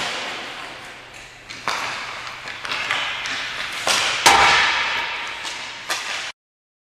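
Hockey skate blades scraping and carving on rink ice, with sharp cracks of a hockey stick striking a puck in a slap shot, the loudest a little past four seconds in. A last sharp knock comes near the end, then the sound cuts off.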